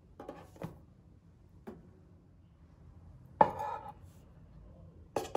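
Objects being handled: a few light knocks and clicks, with one louder clatter that rings briefly about three and a half seconds in.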